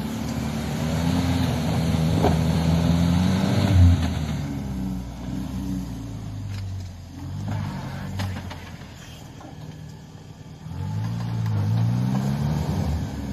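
Land Rover Defender engine revving hard while its mud-terrain tyres spin and churn through deep snow, the vehicle stuck and not moving forward. There is a thump about four seconds in, after which the revs ease off, and they climb again near the end.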